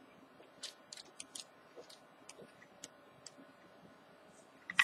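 Paper pages of a colouring book being handled and turned, giving faint, irregular ticks and clicks, with a louder crackle of paper right at the end.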